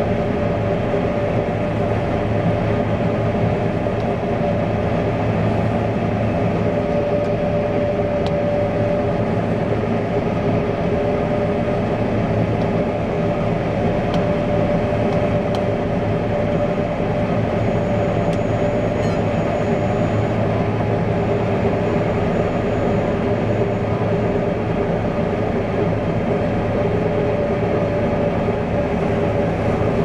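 Fendt Ideal 7T combine harvester running while harvesting grain: a steady mechanical drone with several held tones and no change in level.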